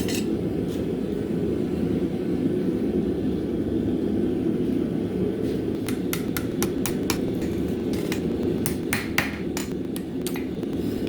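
Hammer striking steel on an anvil: a quick, uneven series of sharp metallic blows, some ringing briefly, starting about halfway through. A steady low rumble runs underneath.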